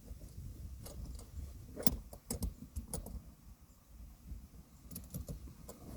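Scattered clicks and taps of a magic arm clamp mount being handled and adjusted, its toothed joint being set, over a low background rumble.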